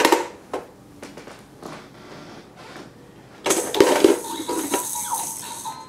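Plastic balls clattering in a toy gumball machine: a sharp rattle as a ball is pushed in at the top, light ticks, then a louder rattle about three and a half seconds in as the ball runs down through the machine, with the toy's electronic tune starting under it.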